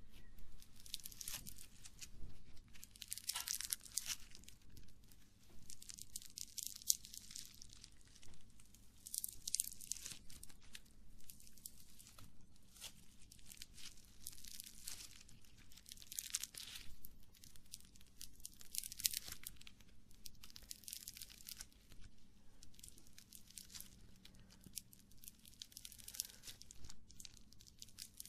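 Close-miked crackling and crunching handling noises, an ASMR trigger, coming in irregular strokes about every two to three seconds.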